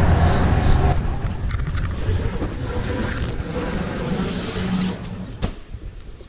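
Truck engine running, a steady low rumble that fades as it is left behind. A single sharp knock comes near the end.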